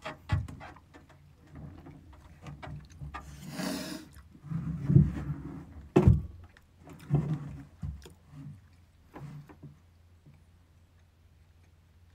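A man's wordless low vocal sounds and a long breathy exhale as he leans back in an office chair, with a few thumps and knocks from the chair as he shifts, the sharpest about six seconds in. It quiets down over the last few seconds.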